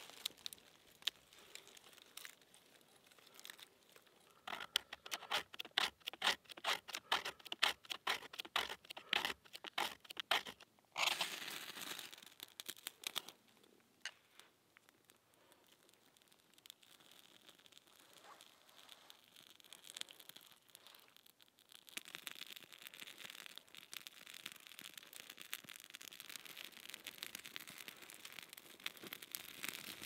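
A quick run of sharp scraping strokes lasting several seconds, then a single louder rasp. This is the sound of tinder being prepared by hand and struck alight. Near the end comes the steady faint crackling of a small fire of birch bark and wood shavings just catching.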